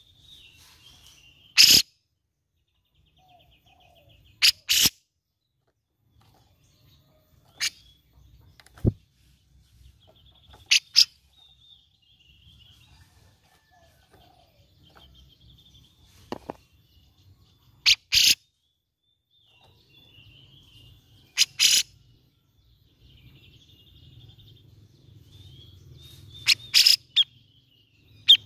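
Grey-cheeked bulbul (cucak jenggot) calling: short, loud, harsh notes, single or in quick pairs, every few seconds, with faint twittering between them and a quick cluster of notes near the end.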